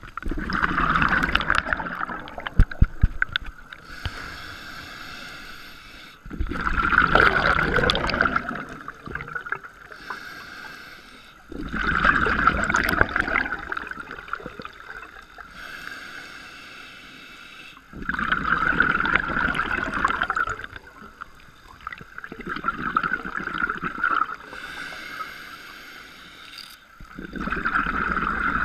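Scuba diver breathing through a regulator underwater: about six bubbly rushes of exhaled air, one every five seconds or so, with a fainter hiss of inhalation through the demand valve between them.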